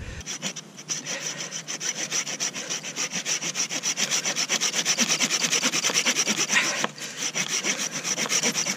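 Silky F-180 folding saw cutting through a branch in quick, steady back-and-forth strokes, with one short break about seven seconds in.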